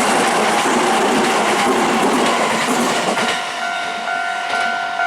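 A Nankai Koya Line electric train running over a level crossing, its wheels clattering on the rails. The rail noise eases about three seconds in, leaving the crossing's electronic warning bell ringing in a steady, evenly repeating two-tone pattern.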